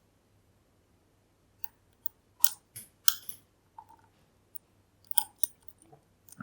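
Irregular metallic clicks and short scrapes of a dimple pick working the pins inside a Kale Kilit 10-pin dimple lock, with a cluster of louder clicks about two to three seconds in.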